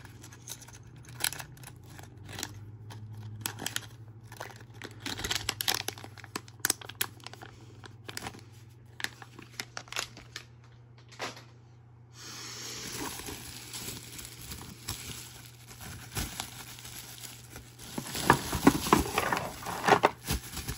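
Plastic component bags and a bubble-wrap bag crinkling and rustling as they are handled, with many small crackles. The crinkling is loudest about two seconds before the end, as the bubble wrap is lifted out of the box.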